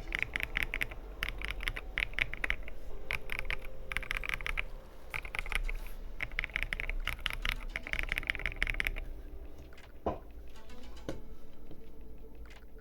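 Typing on a custom gasket-mount R2 KBD67 Lite mechanical keyboard with lubed, filmed Durock Koala tactile switches and PBT XDA keycaps: fast runs of keystrokes in bursts with short pauses between them. After about nine seconds the typing slows to scattered keystrokes, with two single heavier knocks a second apart.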